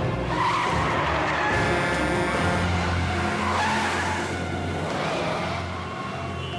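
Animated vehicle sound effects: engines running and tires skidding and squealing a few times as cartoon trucks slide across the road, with music underneath.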